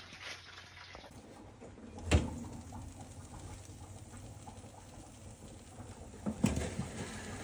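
Two sharp knocks about four and a half seconds apart, the second followed by a few lighter clatters, over a low steady hum in a kitchen beside a running oven.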